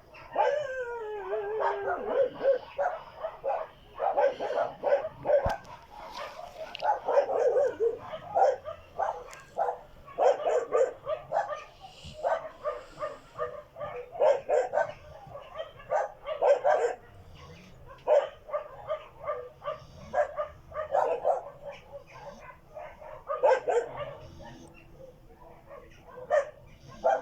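A dog making a long run of short, pitched vocal sounds, about one or two a second, opening with a falling whine.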